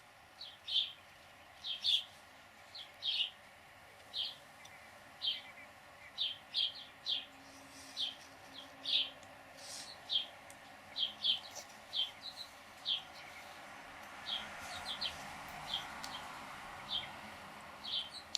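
A small bird calling with short, sharp chip notes, repeated irregularly about one or two a second, over a faint steady hiss. A soft rushing noise swells and fades a little after two-thirds of the way through.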